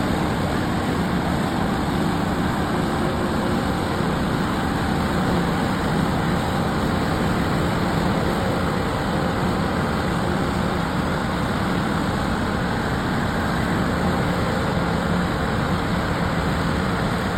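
Steady, unchanging engine noise of a motor vehicle running, with a low hum under an even rush of noise.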